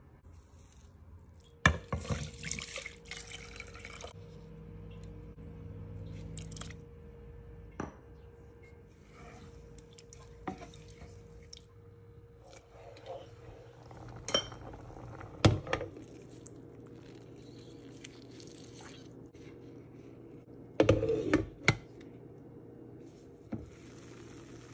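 Cooking sounds at a pot: scattered sharp clinks and knocks of a metal spoon and lid against the pot, with liquid being poured and stirred in, over a steady low hum. The loudest knocks come about a second and a half in, about fifteen seconds in, and in a quick cluster about twenty-one seconds in.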